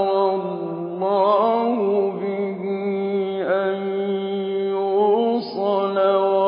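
A man's voice chanting Quran recitation in Arabic with tajweed. He holds long, steady melodic notes and turns the pitch slowly, with no instruments.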